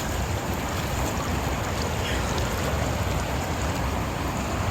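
Steady rushing of flowing water, with a heavy low rumble.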